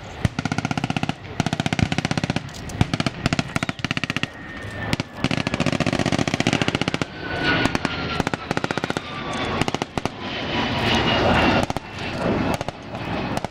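Rapid bursts of machine-gun fire, long and repeated, through much of the clip. From about halfway a steady rushing noise with a slowly falling whine builds up under the continuing bursts.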